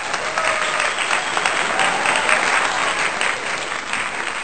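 A crowd applauding: dense, steady clapping at a loud level.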